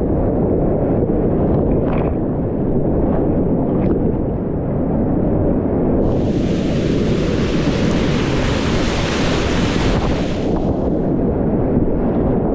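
Whitewater rapids rushing right around a kayak, a dull, heavy rush heard close up. From about six seconds in, spray and foam breaking over the boat add a brighter hiss for about four and a half seconds.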